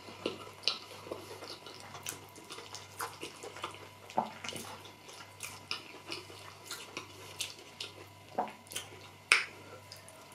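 Close-miked chewing of food: scattered wet mouth clicks and smacks, with one louder smack about nine seconds in as another spoonful goes in.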